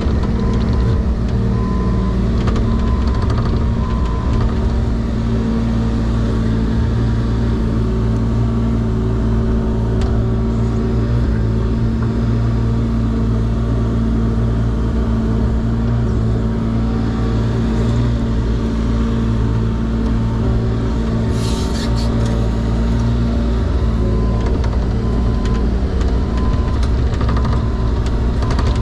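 Compact excavator's diesel engine running steadily at working revs, with a brief hissing noise about 21 seconds in.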